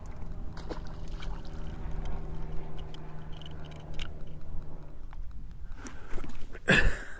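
A bass strikes a plastic worm at the surface just as it is lifted from the water, and the hook is set too early, yanking the worm out: one short, loud splash near the end. Before it, a steady low hum runs in the background and stops about five seconds in.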